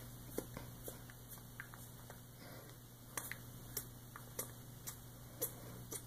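Scattered soft clicks and taps, irregular and about a dozen in all, from a person's hands and mouth as he signs, over a steady low hum of room tone.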